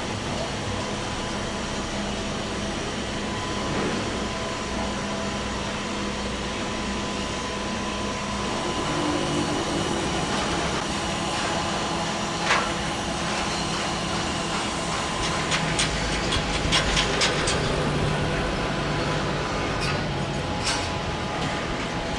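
Construction-site noise: a steady hum of machinery and engines. A sharp metallic knock comes about twelve seconds in, then a quick run of clanks a few seconds later.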